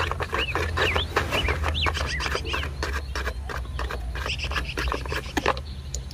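Cardboard and plastic packaging handled while a toy fire truck is worked out of its box: a dense run of short clicks, taps and scrapes. Short chirping bird calls in the background during the first few seconds.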